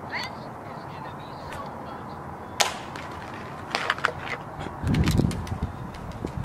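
Steady outdoor hiss with a few sharp clicks and knocks, the clearest about two and a half seconds in, and a low rumble around five seconds in.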